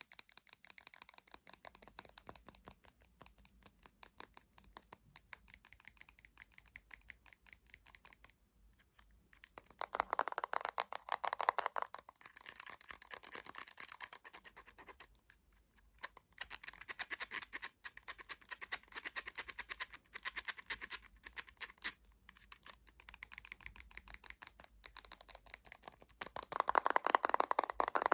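Fingernails tapping and scratching rapidly on small cosmetic containers, in a dense run of quick clicks with two short pauses. The sound grows louder and fuller about ten seconds in and again near the end.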